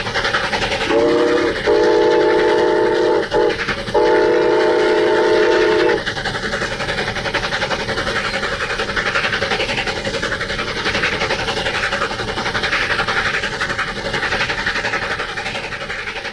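Southern Pacific GS-6 4-8-4 steam locomotive #4460 sounding its chime whistle, a short blast and a longer one about a second in, then another long blast about four seconds in. Between and after the blasts the locomotive and train run on with a steady, fast-beating rush of exhaust and wheel noise.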